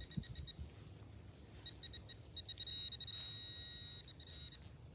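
Handheld metal-detecting pinpointer beeping at a buried coin in the dig hole. A few short high beeps come faster and merge into a steady tone for about a second and a half, then break up again. There are a couple of soft low knocks near the start.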